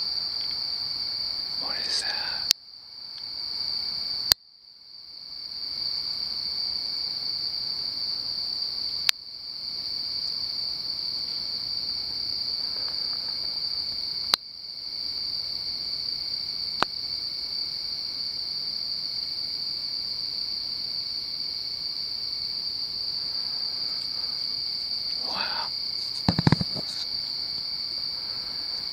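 Night chorus of crickets, a steady high-pitched chirring that carries on without a break. Several sharp clicks cut across it, five in the first seventeen seconds or so, and a short low knock comes near the end.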